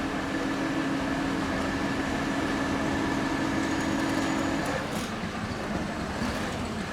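A vehicle's motor running, with a steady machine hum that cuts off about two-thirds of the way through over a constant low rumble.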